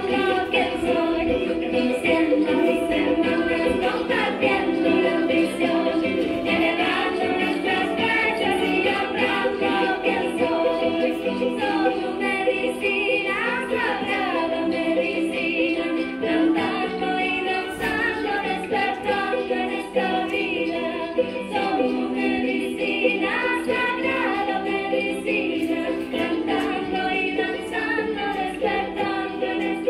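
Background song of women's voices singing together in chorus, with a steady beat under it.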